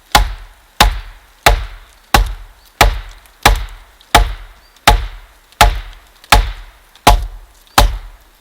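Steady, evenly paced blows of a tool striking wood, about twelve hard strikes at roughly one and a half a second, each with a short ringing decay, as in chopping or driving timber.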